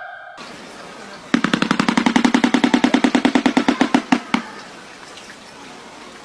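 A bird making a rapid mechanical-sounding rattle: a fast, even train of sharp clicks, about ten a second, for about three seconds, ending in a couple of separate clicks.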